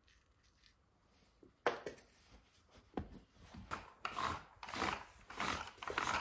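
Handheld lint roller rolled back and forth over a fitted bed sheet to pick up cat fur, making a run of rubbing strokes about twice a second in the second half. A sharp click comes first, nearly two seconds in.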